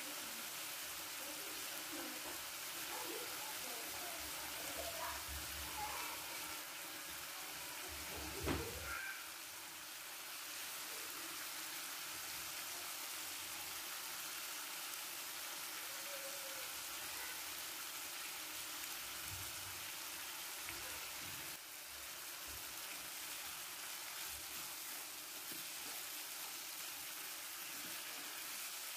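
Chicken breast pieces frying in oil in a nonstick pan, a steady sizzle, with one sharp knock about eight seconds in.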